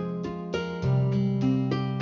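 Background music: plucked acoustic guitar playing a gentle tune, notes changing every half second or so.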